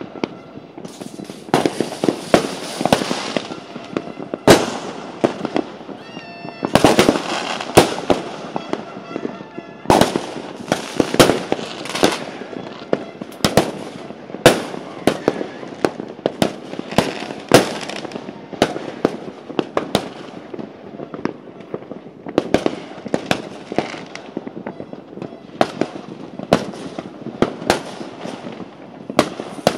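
Fireworks exploding: many sharp bangs at irregular intervals, some in quick clusters, over a continuous crackle of more distant bursts.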